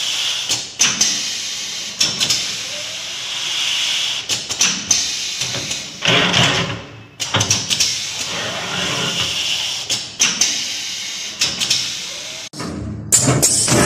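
Pneumatic spout-pouch filling and capping machine running through its cycle: air cylinders clacking as they stroke, with short bursts of compressed-air exhaust hiss repeating every second or two, and a longer, louder hiss near the end.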